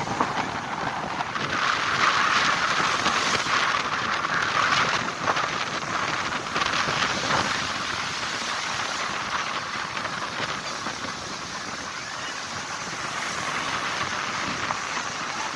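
Sea surf washing ashore as a continuous hiss of breaking water. It swells a couple of seconds in, then slowly eases off.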